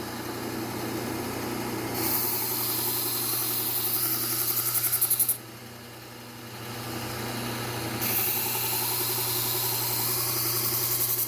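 Bucktool low-speed belt sander running with a steady hum while a kitchen knife blade is drawn along its 3M Trizact A30 belt in two grinding passes of about three to four seconds each, the first starting about two seconds in. This is the edge-refining stage that follows the coarse Cubitron belt.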